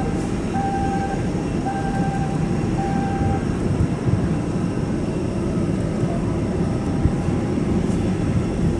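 Steady rumble of jet airliner engines across the airfield. In the first few seconds a short tone repeats about once a second.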